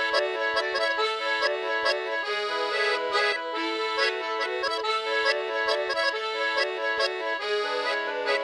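Solo accordion playing a quick melody of short notes over a held low bass note.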